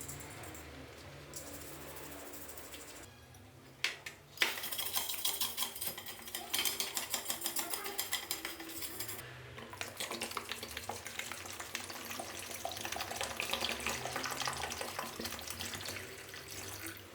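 Water splashing with scrubbing and small clinks of parts being washed, in several short takes that cut in abruptly.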